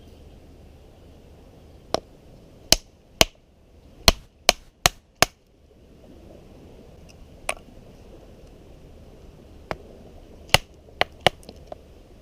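Chopping: about a dozen sharp strikes at uneven spacing, with a quick run of five around the middle and a cluster of four near the end, over a steady background hiss.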